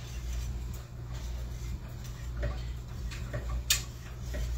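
Metal whisk stirring a thick cheese sauce in a stainless steel pot, ticking irregularly against the pot's sides, with one sharper click about three-quarters of the way through. A steady low hum sits underneath.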